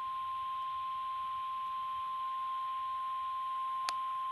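NOAA Weather Radio 1050 Hz warning alarm tone: a single steady, high-pitched beep held unbroken, announcing that a warning-level emergency alert is about to be read. A short click cuts in about four seconds in.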